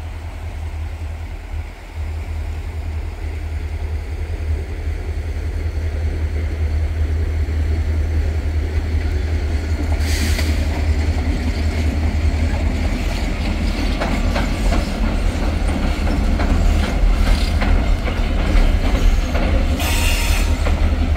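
A single diesel locomotive, running light with no cars, approaching and crossing a steel railroad bridge slowly. Its low rumble builds steadily and is loudest as it reaches the bridge near the end.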